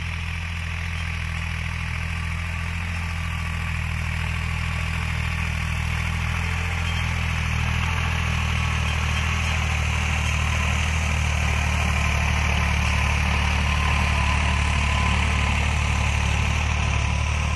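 Farm tractor's diesel engine running steadily under load while pulling a rotavator through dry soil, growing louder as it comes closer. The rotavator's blades churning the earth add a steady rushing noise over the engine.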